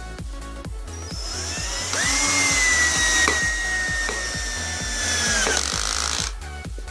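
Cordless drill motor running on a 14.4-volt pack rebuilt from lithium-ion cells: it spins up to speed with a rising whine, holds steady for about three seconds, then stops, over background music with a steady beat.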